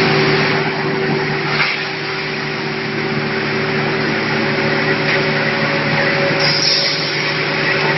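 Full-automatic vacuum forming line for PS foam ceiling tiles running: a steady machine hum with a few constant tones under an even rushing noise.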